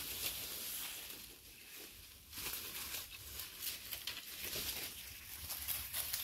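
Leaves, twigs and leaf litter rustling and crackling in irregular small bursts as someone moves through forest undergrowth, over a steady high hiss.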